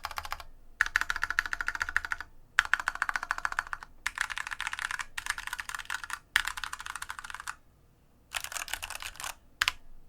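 IQUNIX F96 mechanical keyboard with Cherry MX Brown switches, its keys mashed in fast bursts of rapid clatter separated by short pauses, the last burst very brief near the end.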